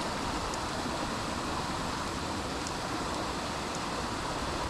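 Steady rush of a waterfall and creek water, an even hiss-like roar with no letup.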